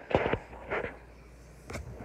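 Hard plastic toy ramp mould and lid being handled: a few knocks and rustles as the moulded kinetic sand is taken out of the ramp and put into the lid. The loudest knocks come just at the start, with a shorter rustle a bit before the one-second mark and lighter ticks near the end.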